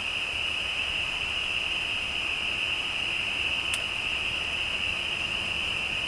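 A chorus of frogs calling, a steady high-pitched din with no breaks, and a single sharp click about three and a half seconds in.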